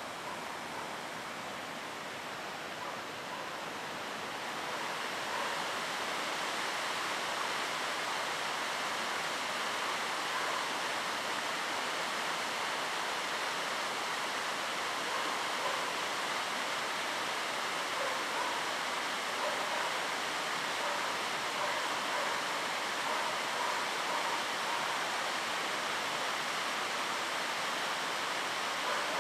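Steady rush of running water from a stream or waterfall, growing a little louder about five seconds in and then holding even.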